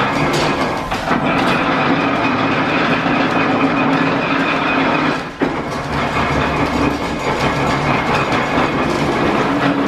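1897 Whitcomb eight-foot metal planer, belt-driven from a line shaft, running with its table travelling back and forth under the tool head: a steady mechanical rumble and clatter with a whine over it. About five seconds in the sound briefly drops and its tone changes.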